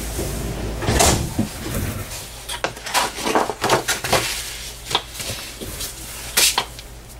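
Workbench handling noise: a run of irregular knocks, clicks and rustles as a card folder and a metal rule are handled and laid down, with the loudest knock about a second in.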